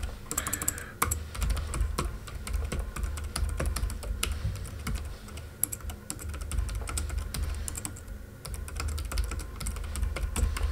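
Typing on a computer keyboard: a quick, uneven run of key clicks with short pauses.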